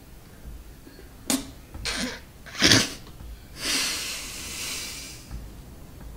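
A man stifling laughter: three short, sharp snorts of breath about a second apart, then a long hissing exhale.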